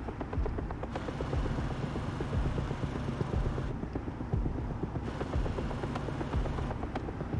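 Car engine and road rumble from moving cars, a steady low drone whose character shifts abruptly a few times.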